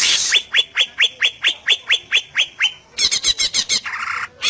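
Cucak ijo (greater green leafbird) singing: a short harsh hiss, then a rapid series of about a dozen quick downslurred whistled notes, followed by a fast chatter and a brief buzz near the end.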